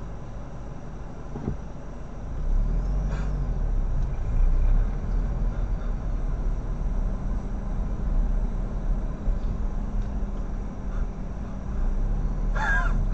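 Car cabin noise picked up by a dashcam: a low engine and road rumble that grows louder about two and a half seconds in as the car moves off, then holds steady. A brief wavering squeal sounds near the end.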